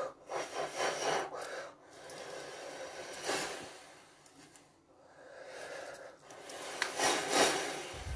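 A woman blowing out through rounded lips in several strong, noisy breaths, each a swell of breathy hiss without voice.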